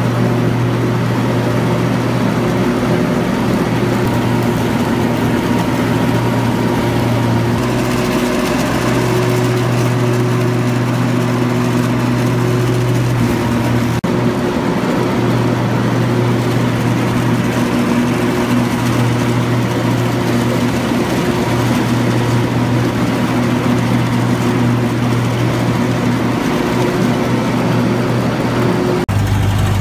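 Ride-on lawn mower engine running steadily while mowing grass, a constant low hum that shifts abruptly a few times.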